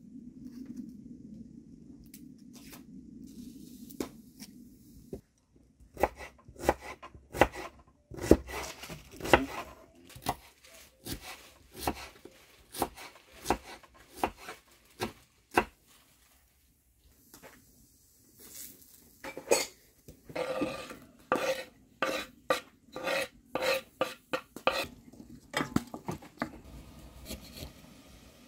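Kitchen knife chopping onion on a wooden cutting board: uneven knocks of the blade striking the board, then after a short pause a quicker, even run of chops about two a second.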